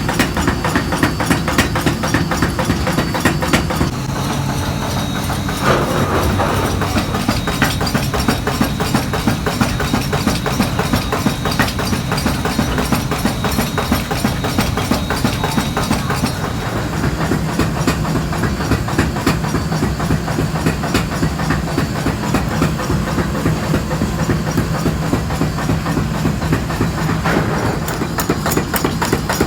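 Workshop machinery running, a steady low hum under a fast, even mechanical clatter, changing character twice.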